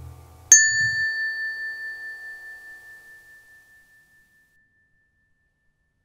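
A single bright bell-like ding about half a second in, ringing on a few clear tones and fading away over about three seconds, while the last of the outro music dies out.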